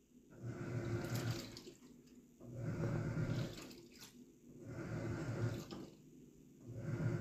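Black & Decker BPWM09W portable washing machine agitating in its wash cycle: the drum turns in four spells of about a second and a half, roughly every two seconds, with water sloshing and clothes swishing, pausing briefly between turns. Quiet overall.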